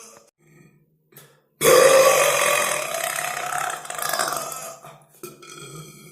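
A person's long, loud burp, starting about a second and a half in and lasting about three seconds, followed by quieter, shorter belching near the end.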